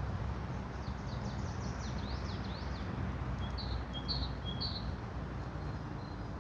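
A songbird singing in a forest: a quick run of high, falling notes, then three short high notes about half a second apart, over a steady low background rumble.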